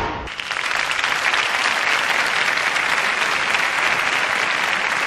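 A large audience applauding. The clapping swells in during the first second and then holds steady, after a brief loud hit right at the start.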